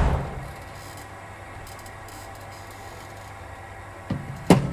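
Cricket net session with a bowling machine: a heavy thump at the start that fades over about half a second, a steady low hum from the running machine, then a light knock and a sharp crack of ball on bat just before the end.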